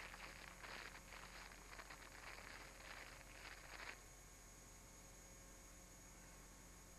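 Faint, irregular rustling in dry leaves, like slow footsteps, for about four seconds, then stopping abruptly and leaving only a steady tape hiss and hum.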